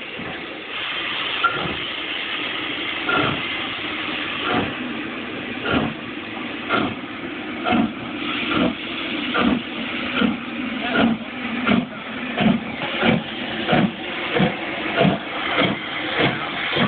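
Southern Railway Schools class three-cylinder 4-4-0 steam locomotive No. 925 Cheltenham pulling away from a stand: its exhaust chuffs begin about a second and a half apart and quicken to about two a second as it gathers speed, over a steady hiss of steam.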